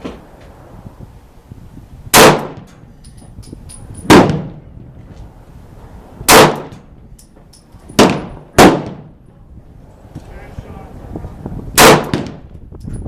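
Six pistol shots fired one at a time, about two seconds apart with a quick pair near the middle, each a loud crack with a short ringing tail.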